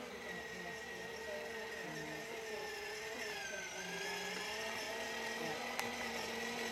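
Battery-powered ride-on toy quad's small electric motor and gearbox whirring steadily as it drives, the whine sagging in pitch briefly about three seconds in before steadying again.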